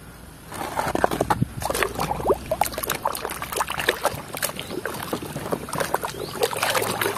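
Hands swishing and scrubbing a plastic toy car in a basin of muddy, soapy water: irregular sloshing and splashing that starts about half a second in.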